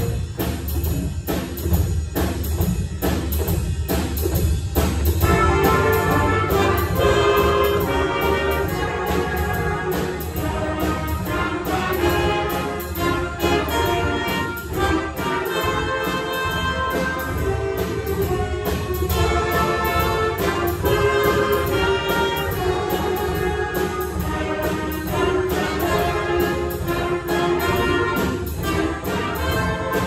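School jazz big band playing a swing arrangement: the first few seconds are carried mostly by the rhythm section with bass and drums, then the saxophone and brass section comes in about five seconds in with full ensemble chords over the rhythm section.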